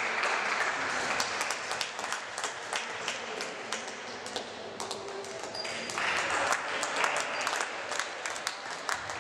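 Spectators clapping in a sports hall: many sharp separate claps throughout, swelling into fuller applause near the start and again about six seconds in.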